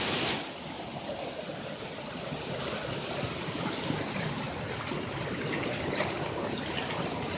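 Steady rush of flowing water, louder for the first half-second, with a few faint clicks.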